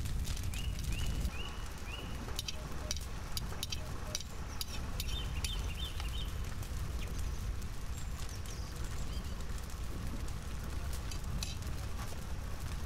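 Wood fire crackling under a cooking pot, with scattered sharp clicks and pops over a steady low rumble. A bird chirps a run of short quick notes about a second in and again around five seconds in.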